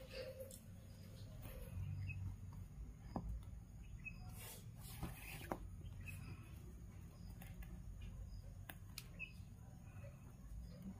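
Faint handling of macrame cord as it is pulled and knotted by hand: light rustles and scattered soft clicks, with a few brief high squeaks, over a low background rumble.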